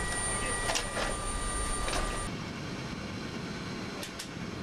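Airfield machinery noise: a steady rumble with high steady whines and a couple of short sharp hisses or clicks. About two seconds in it cuts to a quieter steady rumble, with two short clicks near the end.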